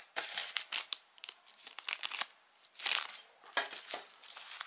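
Small plastic packaging bags crinkling as they are handled, in irregular crackly bursts, the loudest about three seconds in.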